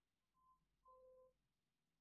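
Near silence with two faint, short electronic beeps about half a second apart, the second a little longer and with a lower tone under it.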